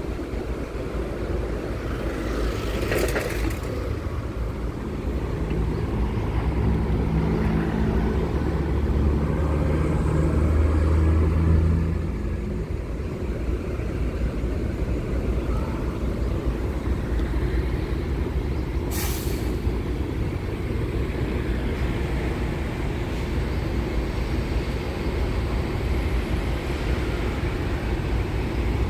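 Busy city-street traffic at a crossroads: a steady low rumble of road vehicles, with a heavy vehicle's engine running louder from about 5 to 12 seconds in. Two short hisses cut through, about three seconds in and near 19 seconds.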